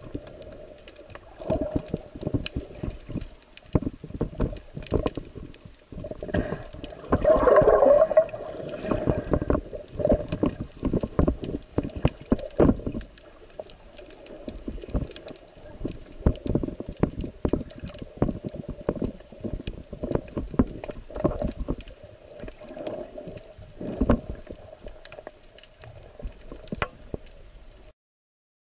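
Underwater sound of a spearfishing dive: water movement with frequent irregular knocks and clicks over a faint steady hum, and a louder swirl of water noise about seven seconds in.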